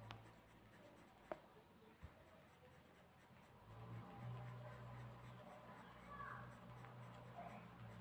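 Faint scratching of a colouring pencil stroking across paper while shading a drawing, with a few small taps near the start. A low steady hum comes in about halfway.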